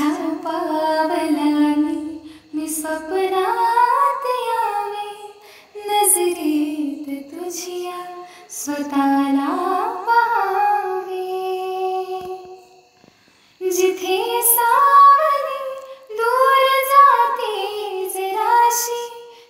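A female voice singing a slow, melodic song in phrases of a few seconds each, broken by short pauses.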